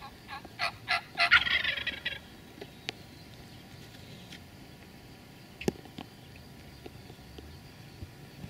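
A wild turkey gobbler gobbles once, about a second in: a few short notes run into a rapid rattling gobble lasting about a second. A couple of faint sharp clicks follow later.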